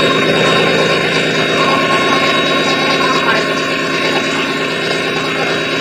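Mitsubishi S6R2-MPTK six-cylinder turbocharged marine diesel engine running steadily on test after its overhaul, with a steady high-pitched whine over the engine note.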